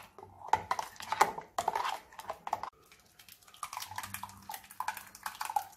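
Wet squelching and scraping of blended vegetable paste being mixed by hand in a steel mixer-grinder jar and then tipped out into a plastic strainer: a run of irregular short clicks and scrapes, with a brief lull about halfway.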